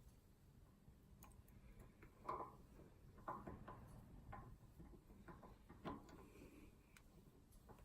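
Faint, irregular metal clicks and ticks of homemade picking tools being worked against a Squire Defiant six-lever padlock, with a few sharper clicks spread through.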